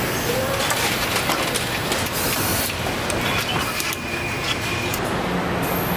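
Assembly-line machinery noise: a steady hiss and hum with scattered clicks, as a multi-spindle wheel nutrunner runs down a wheel's lug nuts. A faint high whine runs for a couple of seconds past the middle.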